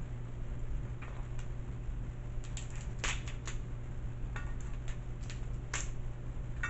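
Crab leg shells cracking and snapping as they are broken apart by hand: a scatter of short sharp cracks, the loudest about three seconds in and again near six seconds, over a steady low hum.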